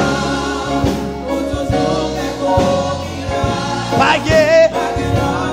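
Live gospel worship music: an electronic keyboard playing sustained chords over a drum kit, with voices singing. A male lead voice sings the line "Pa genyen" about four seconds in.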